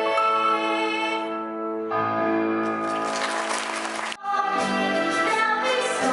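Music with sustained instrumental notes and singing. About three seconds in, a hiss swells up and breaks off with a brief drop just after four seconds, then the music carries on.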